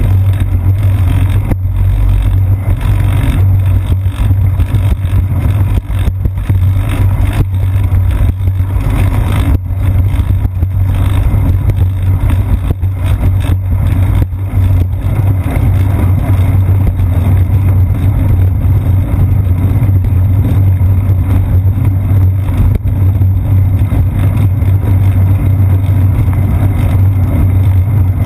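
Loud, steady low rumble of wind buffeting and ride vibration picked up by a bicycle's seat-post-mounted GoPro Hero 2 while riding, with a few short knocks as the wheels cross bumps and joints in the path.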